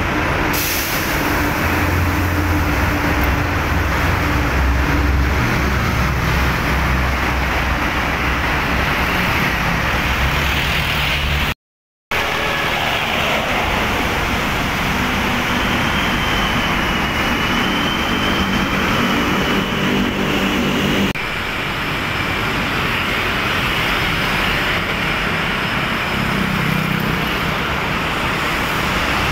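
Steady heavy road traffic passing close by: car, van, motorcycle and truck engines running, with a low engine drone and tyre noise. The sound cuts out completely for about half a second around the middle.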